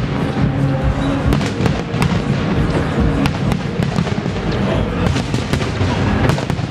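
Fireworks going off in a rapid run of crackles and bangs, over music with sustained low notes.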